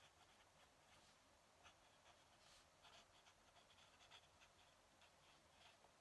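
Faint scratching of a fountain pen nib on paper, a run of short, quick strokes as the words are written.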